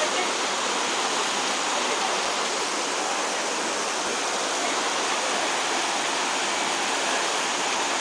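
Rushing water, steady and unchanging.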